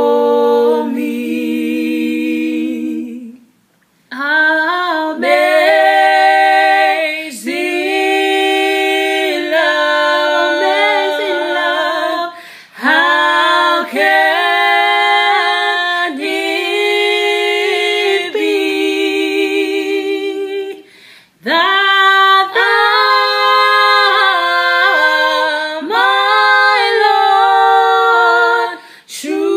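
Two women singing a worship song together a cappella, in long sung phrases with vibrato and a few short breaks for breath.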